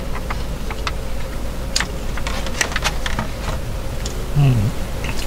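Scattered light clicks and taps, like plastic utensils against a takeout food container during a meal, over a steady low hum. A short low hum of the voice sounds a little past four seconds in.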